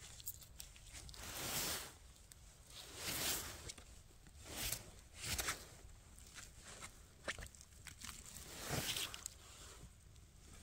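Footsteps and rustling in dry leaves and twigs on the forest floor: about five swells of rustling a second or two apart, with small sharp snaps and clicks between them.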